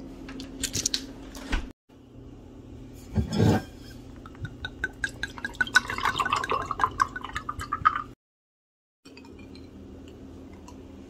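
Cream liqueur poured from a bottle into a stemmed wine glass: a knock about three seconds in, then a few seconds of glugging with small glassy clinks as the glass fills, the pitch creeping slightly upward. The sound cuts off abruptly near the end, leaving a low steady hum.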